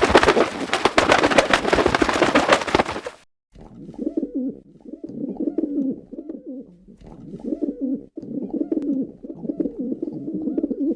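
Pigeon sounds: a loud, dense rustling flurry for about the first three seconds, then a pigeon cooing in repeated low, rolling phrases.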